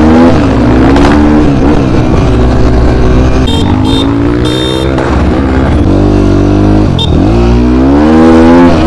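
Hyper X250 250 cc dirt bike engine under way, its pitch rising and falling as the throttle is opened and closed, with sharp dips about two and seven seconds in. A few short high-pitched beeps sound between about three and a half and five seconds in.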